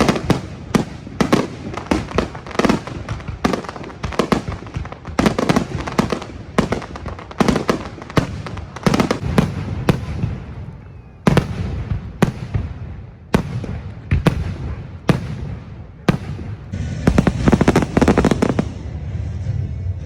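Fireworks display: aerial shells bursting in quick succession, bang after bang, with a dense crackling flurry near the end.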